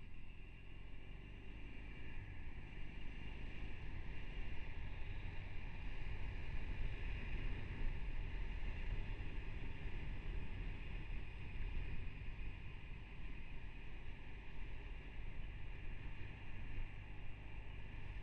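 Motorcycle engine running while riding, picked up by a helmet camera together with steady wind and road noise; it grows a little louder about a third of the way in, then eases.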